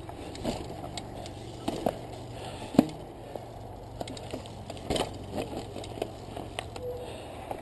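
A mountain bike clattering over loose rock at walking pace, with irregular knocks and rattles from rocks and bike parts. The sharpest knock comes just before the middle.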